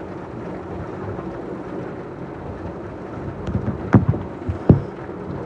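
Thunder over steady rain: a low rumble swells late on, with two sharp loud cracks less than a second apart.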